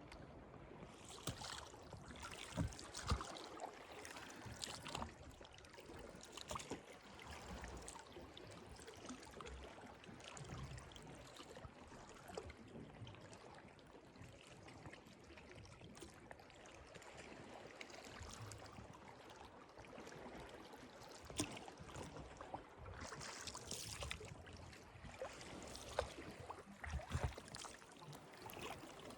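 Calm sea water lapping, with many small irregular splashes and gurgles and a couple of brief hissing surges as little waves wash in.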